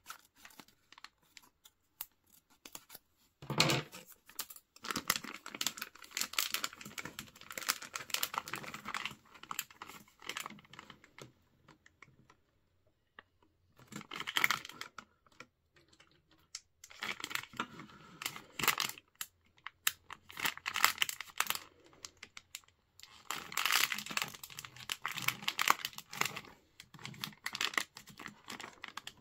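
Plastic potion packet crinkling and rustling in bursts as it is cut open with scissors and squeezed and shaken empty over a plastic toy bottle, with quiet pauses between the bursts.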